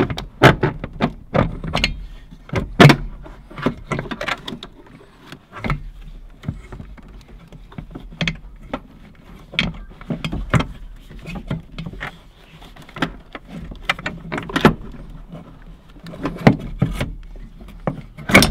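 Irregular clicks, knocks and clunks of metal parts being handled as a brake booster and master cylinder are worked loose and eased out of an engine bay.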